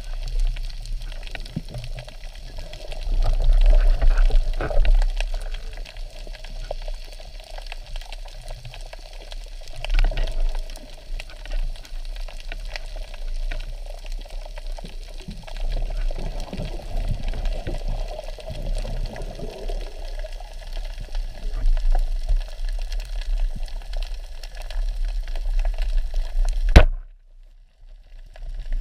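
Muffled underwater sound of a diver's breathing: exhaled bubbles gurgling out in swells every few seconds. Near the end a single sharp crack, the band-powered speargun firing, after which the sound drops almost to nothing for a moment.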